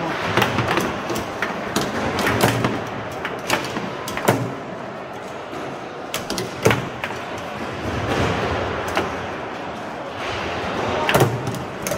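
Foosball table in match play: irregular sharp clacks and knocks as the hard ball is struck by the figures, rattles off the table walls, and the rods slide and bang against their bumpers, over a steady background noise.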